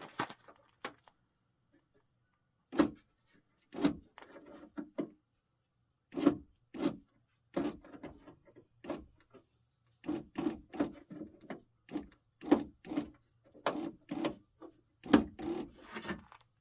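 Van's power window motor run in many short bursts, raising the door glass on newly installed regulator tape; the bursts come closer together in the second half.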